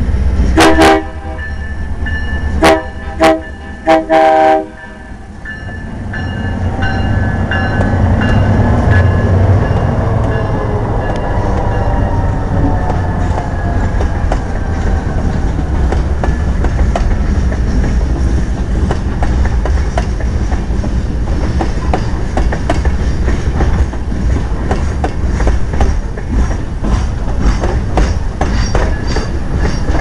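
Union Pacific genset switcher locomotive sounding its multi-note air horn in several short, loud blasts in the first five seconds, a playful horn show. Its diesel engines then pass close by, followed by tank cars rolling past with a steady clickety-clack of wheels over the rail joints.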